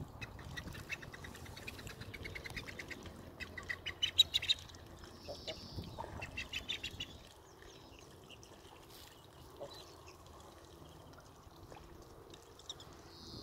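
Ornamental ducks calling on a pond: several runs of rapid, repeated calls in the first half, the loudest about four seconds in, then only a few faint calls.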